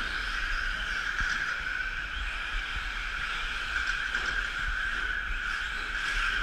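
Electric 4x4 short course RC trucks racing, their motors and geartrains giving a steady, unbroken whine over a low rumble.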